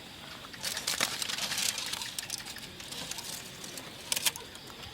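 Cooking-fire sounds: a steady sizzling hiss with irregular sharp crackles and pops, a cluster about a second in and another near the end.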